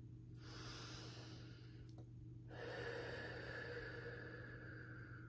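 A woman breathing softly: a breath of about a second and a half, then a longer one of nearly three seconds, over a faint steady low hum.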